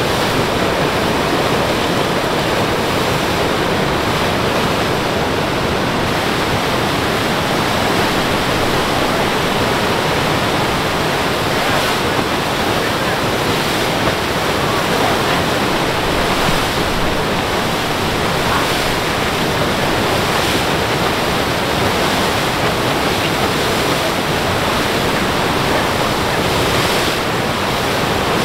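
Flooded river rushing out through a breach in a beach's sand berm into the sea, a loud, steady rush of churning water and breaking standing waves.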